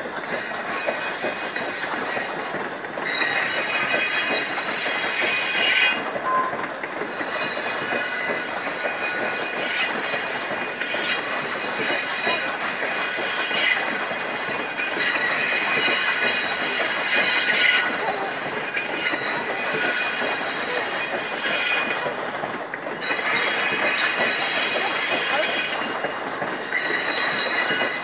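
Steel wheels of a long passenger train squealing on the rails as the coaches roll through the station tracks. A shifting set of high screeching tones rides over the rumble of the wheels and drops out briefly several times.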